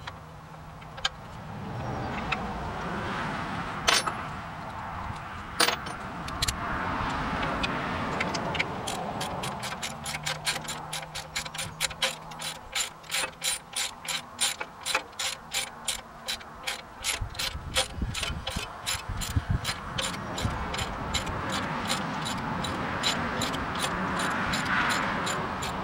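Hand ratchet wrench clicking in a fast even run, about five clicks a second, while bolts are run in to fit the fan and pulley on the front of a Ford 302 V8. A few separate metal clinks come first, and the clicking starts about nine seconds in.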